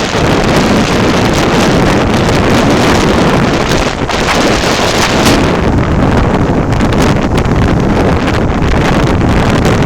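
Typhoon wind blasting across the microphone: a loud, steady rushing roar with no break.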